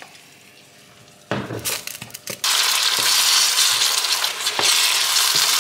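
Diced tomatoes and green onions frying in a pan while being stirred with a wooden spatula: a few scrapes, then from about two and a half seconds in a steady loud sizzle.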